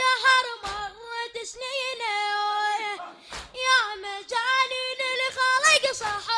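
A boy's high voice chanting a Shia lamentation (latmiya) into a microphone, unaccompanied. The notes are long, held and ornamented, with a short pause for breath about halfway through.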